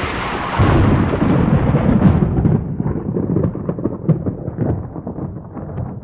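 Thunderclap: a sharp crack breaking into a low rolling rumble that slowly fades over several seconds.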